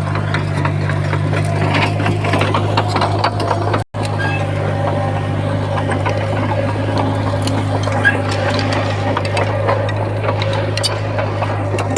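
Komatsu bulldozer's diesel engine running steadily under load, with the clicking and rattling of its steel tracks. The sound cuts out for an instant about four seconds in.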